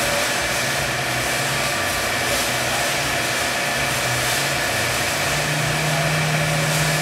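Steady machine hum and noise of a servo-hydraulic fatigue-testing rig running, with the hum's pitch stepping up slightly about five seconds in.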